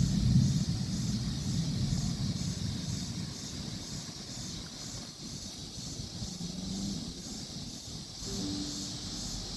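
Storm ambience outdoors: a low wind rumble on the microphone, strongest in the first second, over a steady high hiss.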